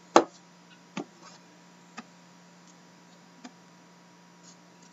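A cardboard hockey-card box being handled: a few sharp clicks and taps, the loudest about a quarter second in, then fainter ones roughly a second apart, over a faint steady hum.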